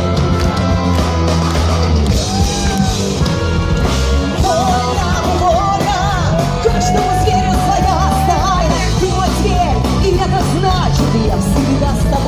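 Folk-metal band playing live: heavy guitars and drums with a wavering melody line on top that holds one long note about midway.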